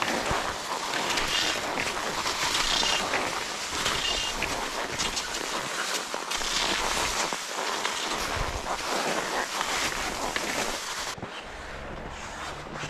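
Wind buffeting the phone's microphone while skiing, over the swish of cross-country skis gliding on snow. The noise turns quieter near the end.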